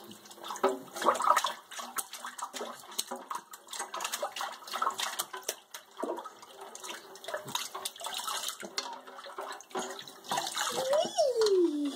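A baby splashing with his hands in bath water in a kitchen sink: irregular small splashes and slaps on the water. Near the end a voice rises and falls in pitch.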